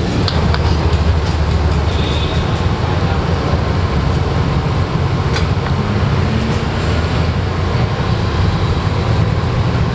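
Loud, steady low rumble of street traffic, with a few light clicks.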